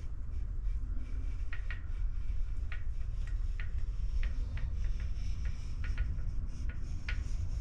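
Small handling sounds from silicone caulking work: faint, irregular little clicks and rubbing as the bead is tooled and wiped along the trim, over a steady low rumble.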